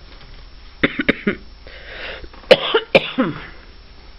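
Someone coughing in short, sharp bursts. There are about three quick coughs about a second in, then two more near the middle, each of the later ones trailing off in a short falling voiced sound.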